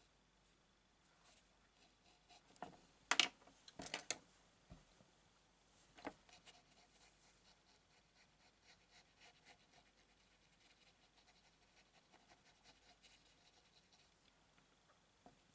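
Graphite pencil strokes scratching faintly and repeatedly on textured watercolour paper. A few sharp taps and clicks come a few seconds in.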